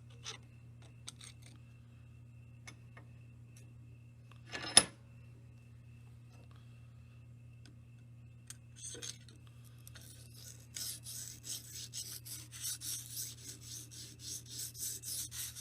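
A single sharp clack about five seconds in, then from about ten seconds on a quick run of rasping strokes, about three a second: an oiled Lansky honing stone on a guide rod is being drawn across the edge of a knife clamped at the 20-degree angle.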